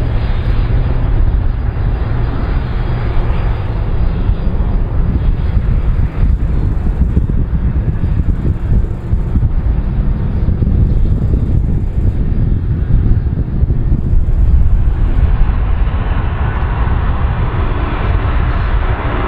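Aircraft engines running: a loud, steady low rumble that turns harsher and brighter near the end.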